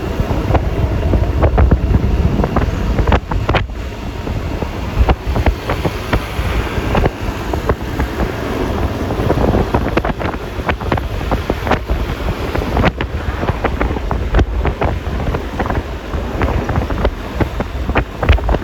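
Wind buffeting the microphone of a moving Yamaha Lexi LX 155 scooter, with road and engine noise beneath. Frequent short crackles break through the rush.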